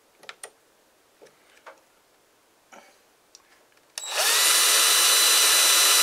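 A few faint clicks, then about four seconds in a cordless drill starts up and runs steadily, its whine rising briefly to speed. It is spinning a drill bit through an engine-mount centering tool to start a pilot hole for an engine mounting bolt.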